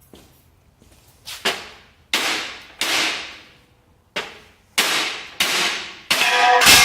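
Heavy hammer striking a welded steel test piece about eight times, trying to break the weld. The blows come faster and harder toward the end, and the last, loudest one leaves a ringing metallic tone.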